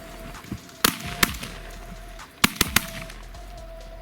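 Shotgun volley: one shot about a second in, another shortly after, then three shots in quick succession midway.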